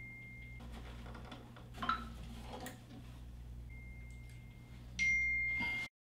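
A thin, steady high-pitched tone like a beep, heard three times over a faint hum with a few soft clicks. The last time it is louder and comes with a hiss, and it cuts off abruptly near the end.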